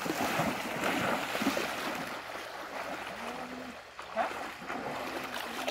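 Water splashing around a man's legs as he wades through a shallow, rocky river, over the steady rush of the stream. The splashing is loudest in the first two seconds, then settles.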